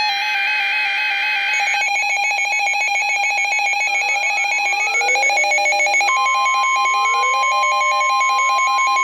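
Several electronic emergency alert tones sounding together: high beeps that step back and forth between pitches, repeated rising chirps from about four seconds in, and from about six seconds in a steady single-pitch alarm tone, the NOAA Weather Radio warning alarm signalling the next alert.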